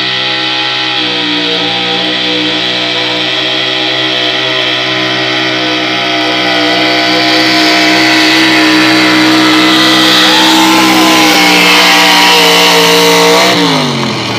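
Pickup truck engine held at high revs under full load while pulling a weight-transfer sled, getting louder about halfway through. Near the end the throttle is let off and the revs fall away.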